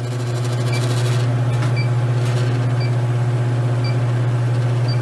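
Electronic refrigerant leak detector beeping about once a second, with a steady low hum underneath, as its probe sniffs refrigerant leaking at the stem of a thermostatic expansion valve.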